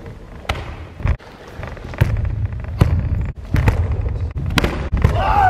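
Bare feet stamping and sliding on a wooden dojo floor and karate gi snapping as two karateka step in with techniques: a string of sharp thumps and slaps, roughly one every half second to a second. A short shout (kiai) comes near the end.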